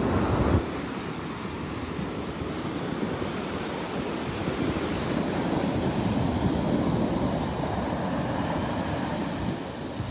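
Sea waves washing onto a beach in a steady rush that swells and eases, with wind buffeting the microphone, hardest in the first half second.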